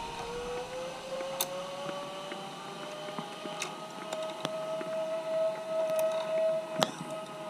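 Zipline trolley pulleys running along the steel cable as a rider goes down the line: a whine that rises in pitch as the rider picks up speed, then holds steady and fades near the end. A few sharp metal clicks from the harness clips and carabiners of the next rider being hooked onto the cable.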